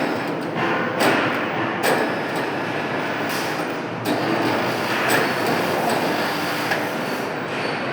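Metalworking machinery running, with harsh scraping and a series of sharp metal knocks every second or two.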